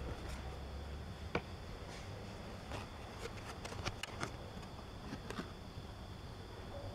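Faint, scattered light clicks and ticks of a cardboard trading card being handled and turned over in the fingers, over a quiet background with a steady faint high-pitched hum.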